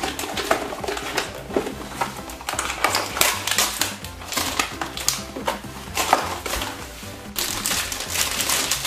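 Plastic Num Noms blind-bag wrappers crinkling and tearing as they are opened by hand, in irregular crackles, over background music.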